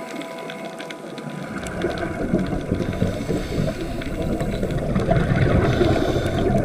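Underwater rumble and crackle of moving water, growing louder from about a second and a half in.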